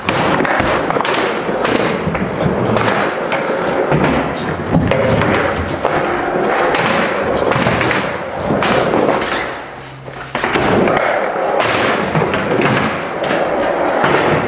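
Skateboard wheels rolling over the concrete floor and ramps of an indoor skatepark, with repeated clacks and thuds from the board's pops and landings. The rolling drops away briefly about ten seconds in, then picks up again.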